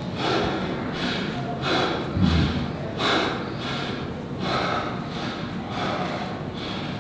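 A man's short, heavy breaths through the nose and mouth, about one a second, as he strains while flexing through bodybuilding poses. One breath about two seconds in is louder and lower.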